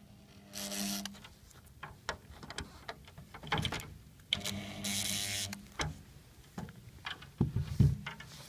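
A power screwdriver runs in two short spells of about a second each, one about half a second in and one near the middle, driving screws while a resin chiavari chair is assembled. Between them come scattered clicks and knocks of chair parts being handled, and a few low thumps near the end.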